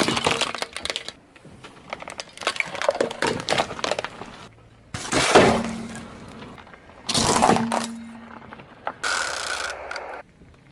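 Crunchy objects cracking and breaking as a car tyre rolls over them, in about five separate crushes with quieter gaps between; the loudest comes about five seconds in.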